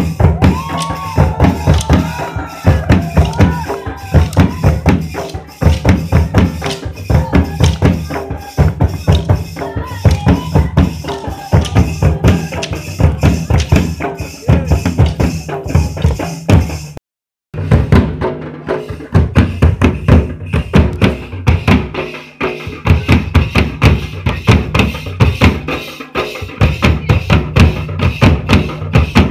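Music with fast, dense drumming and percussion, with a singing voice over it in the first few seconds; the sound drops out briefly about two-thirds of the way through.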